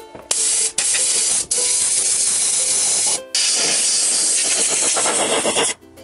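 Hiss of a pressurised spray jet in long bursts: it starts a moment in, breaks off twice for an instant, pauses briefly about three seconds in, then runs on and cuts off near the end.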